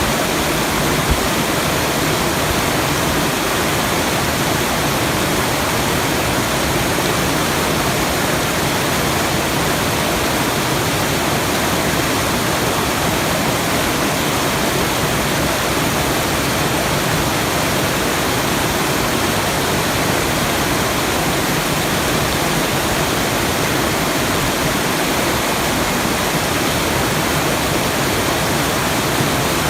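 Rushing water as a steady, unchanging hiss, with no breaks or separate sounds.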